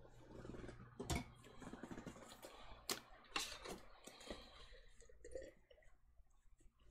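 Plastic-sleeved Magic: The Gathering cards being handled over a play mat: soft rustling with sharp clicks, the loudest about a second in and again about three seconds in, then a few fainter ticks.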